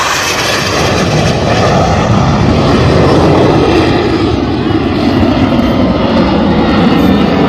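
Fixed-wing military aircraft flying past at an air show: a loud, steady engine rumble whose pitch slowly falls as it goes by.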